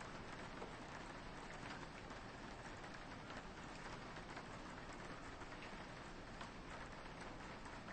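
Soft rain falling steadily on a window, an even hiss with many small drops tapping.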